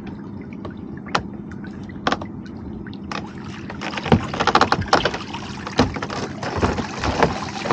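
A crab pot being hauled up out of the sea against the side of a boat: water splashing and streaming off the pot's mesh, with sharp knocks as it bumps the hull. It gets busier and louder about halfway through as the pot clears the surface.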